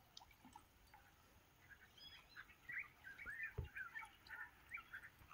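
Faint bird calls: a quick run of short chirps starting about two seconds in, with one dull low thump near the middle.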